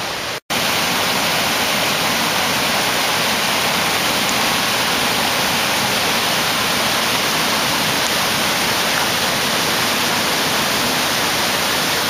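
The Kivach waterfall on the Suna River: white water pouring down between rocks, a loud, steady rush. The sound drops out completely for a moment about half a second in.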